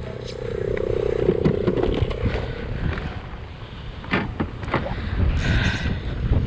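Kayak's electric trolling motor humming under wind buffeting the microphone and water noise, the hum fading after a couple of seconds and coming back near the end, with a few sharp knocks around the middle.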